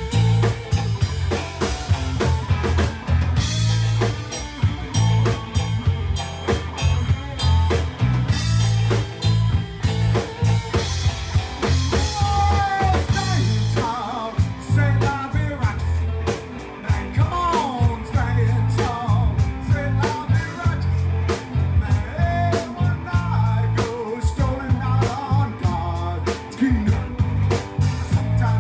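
Live rock band playing: electric guitars, bass and a drum kit, with a steady driving beat and sliding lead-guitar or vocal lines in the middle.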